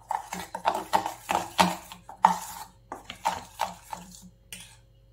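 Metal spoon whisking egg, flour and arrowroot powder into a batter in a stainless steel bowl: quick, uneven clinks and scrapes of the spoon against the bowl, about three strokes a second, stopping shortly before the end.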